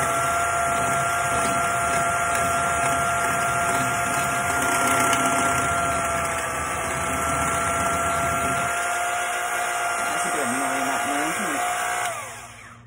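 Old General Electric electric hand mixer running at a steady whine as its beaters whip wet ingredients in a stainless steel bowl. It is switched off near the end and its pitch drops as the motor winds down.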